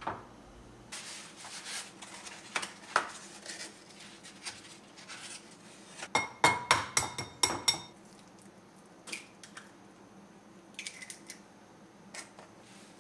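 Clicks and clinks of a glass mixing bowl being handled, then a quick run of sharp taps about six to eight seconds in that sets the glass ringing as an egg is cracked against it, followed by a few lighter clicks.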